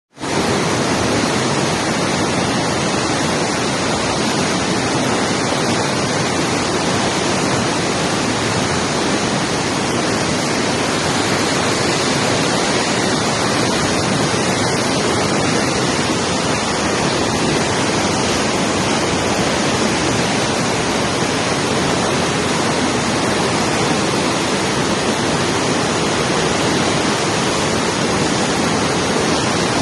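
Waterfall with a steady, loud rush of falling water.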